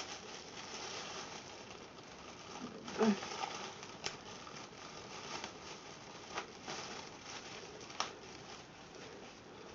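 Packaging rustling and crinkling as a mail package is opened by hand, with a few sharp clicks along the way.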